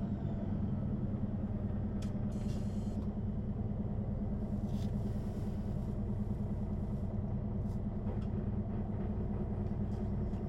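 Neoplan N 4416 city bus's diesel engine idling steadily, heard from inside the bus at the end of the line. Short hisses and clicks come about two and five seconds in.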